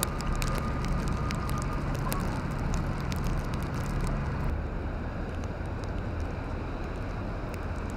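Outdoor city ambience in a snowstorm: a steady low rumble of traffic with wind on the microphone. A dense patter of fine crackles in the first half stops suddenly about four and a half seconds in, leaving a quieter, even hiss.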